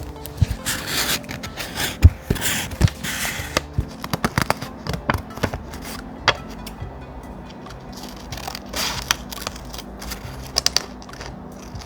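Paper being handled for journaling: rustling and scraping with many small taps and crackles, over soft background music.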